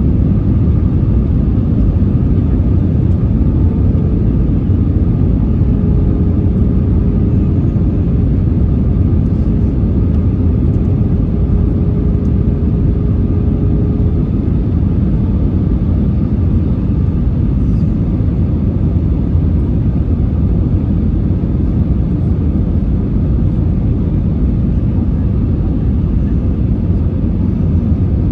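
Steady in-flight cabin roar inside an Airbus A320-200, engine and airflow noise heaviest in the low end. A faint steady hum comes in about four seconds in and stops around the middle.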